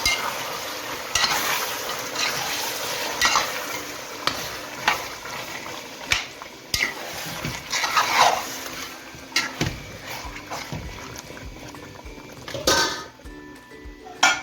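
Chicken pieces sizzling in hot oil in a pot as they brown, stirred with a spoon that knocks and scrapes against the pot every second or so. The sizzle dies down near the end.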